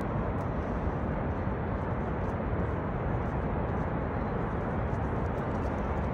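Steady roar of Niagara's American Falls: a dense, even rumble of falling water, heaviest in the low end.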